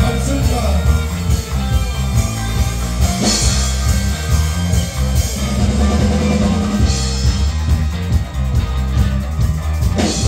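Live rock band playing an instrumental passage: electric guitars, bass guitar and drum kit, with cymbal crashes about three and seven seconds in.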